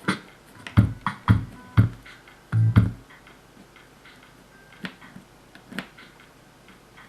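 Music with a keyboard sound, a drum beat and deep bass notes playing through an Edifier R201 computer speaker set with its bass unit, under test after a clean-up repair. The beat and bass stop about three seconds in, leaving a sparser, quieter passage with occasional hits.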